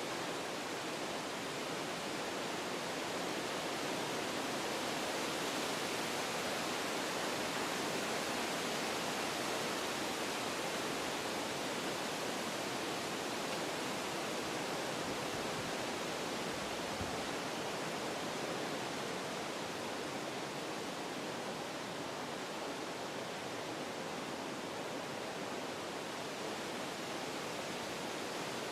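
Wind blowing through forest trees, a steady rushing of leaves and branches that swells a little in the first third and then eases.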